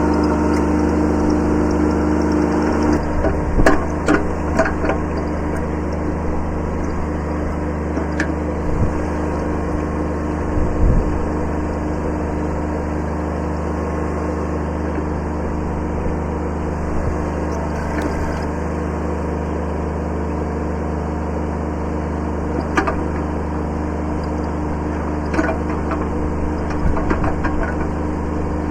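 Kubota B7100 compact tractor's three-cylinder diesel engine running steadily. Its note changes about three seconds in, and short knocks and clanks come and go over it.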